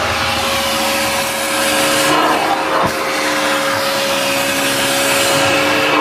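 Kenmore 81414 bagged canister vacuum running at full suction as its nozzle is drawn over carpet: a steady motor whine with a constant tone over the rush of air. It cuts off suddenly at the end.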